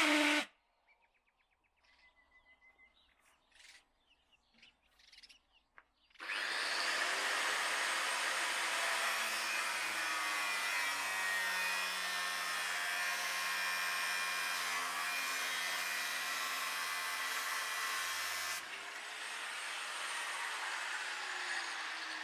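A power tool runs with a steady, noisy sound for about twelve seconds, then carries on a little quieter to the end. A short loud burst comes right at the start, and a few faint clicks and taps fall in the quiet before the tool starts.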